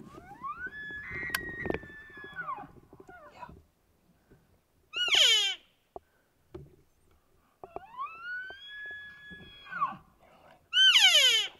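Bull elk bugling twice, each time a whistle that climbs, holds high for about two seconds and then drops away. Twice, about five seconds in and near the end, comes a much louder, short call that sweeps steeply down in pitch.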